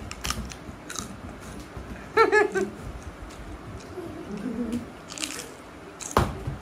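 A toddler's short high-pitched vocal sound about two seconds in, among a few scattered light hand taps and claps, with a sharper smack near the end.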